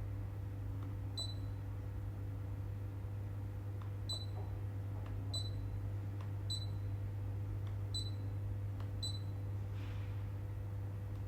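Humidifier running with a steady low hum, with six short sharp clicks at irregular intervals.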